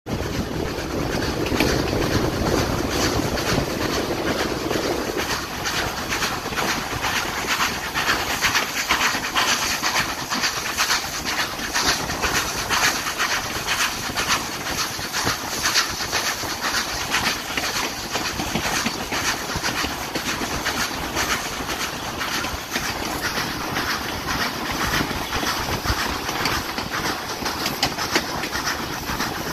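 Steam train running, with a quick, even rhythm of beats that keeps going steadily.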